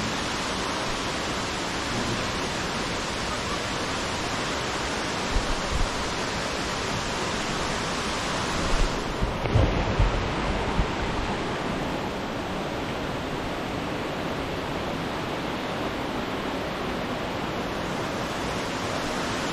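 Waterfall rushing steadily, with wind buffeting the microphone in low bumps about five seconds in and again around ten seconds in.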